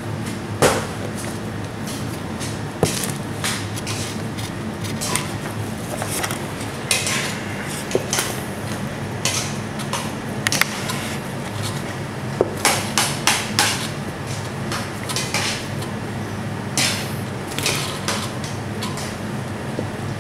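Kitchen work noise: scattered sharp knocks and clinks, some in quick clusters, over a steady low hum.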